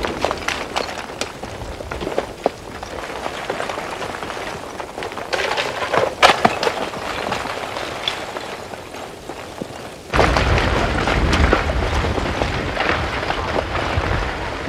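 Blocks of cooling lava cracking, clinking and tumbling down the rubbly front of a slowly advancing lava flow, with scattered sharp clinks and a few louder knocks. About ten seconds in, the sound switches abruptly to a louder, steady rushing noise with a deep rumble.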